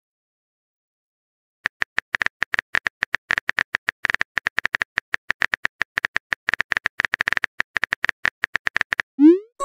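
Texting Story app's keyboard typing sound effect: rapid, uneven key clicks, several a second, as a chat message is typed out letter by letter, starting about two seconds in. Near the end comes a short rising swoosh as the message is sent.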